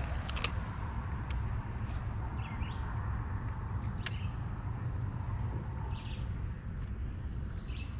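Outdoor ambience on the water: a steady low rumble throughout, a few sharp clicks near the start and about four seconds in, and short bird chirps now and then.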